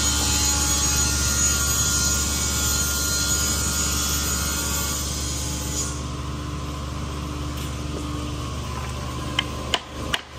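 Steady mechanical running noise from workshop machinery, easing a little about six seconds in. Near the end, a claw hammer strikes the wooden board joint a few times to knock it together.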